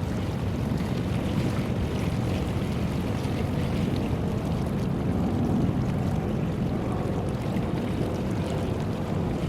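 Steady low rumble of a work boat's engine running as it motors out of the harbour, mixed with wind noise on the microphone.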